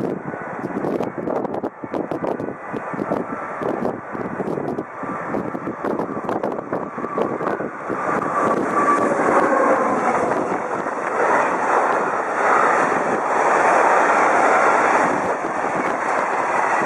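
Freight train of tank wagons approaching and passing on an electrified line, its rumble growing louder about halfway through and then holding steady, with wind buffeting the microphone.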